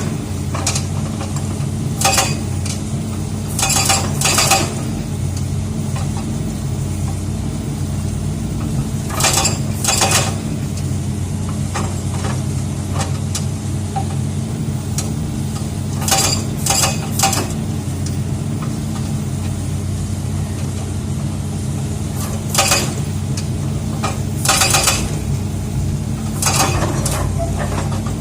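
An excavator's diesel engine running steadily, with short bursts of sharp metallic clanking every few seconds from its hydraulic rock breaker working on rock.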